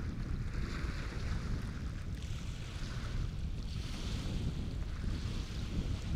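Wind buffeting the microphone in a steady low rumble, over a rush of waves and water that swells and fades every second or two.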